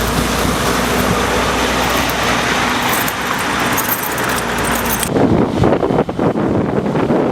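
Vehicle engine running steadily under a wash of wind noise; about five seconds in it cuts abruptly to gusty wind buffeting the microphone.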